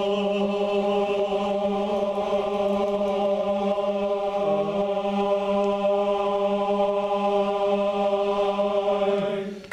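Barbershop chorus singing one long sustained note together in unison, steady in pitch and loudness for about nine seconds, then released just before the end.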